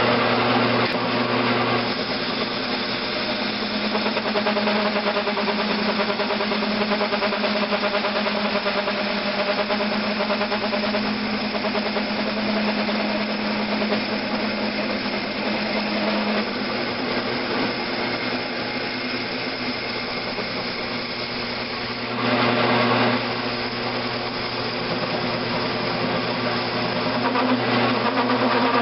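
Grizzly G9972Z 11x26 bench lathe running steadily, with motor and gearbox hum, while its tool cuts a freehand radius on a metal valve head. The sound briefly grows louder about 22 seconds in.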